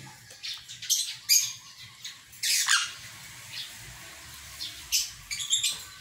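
Sun conure giving a string of short, harsh squawks, with a longer screech about two and a half seconds in that drops in pitch at its end.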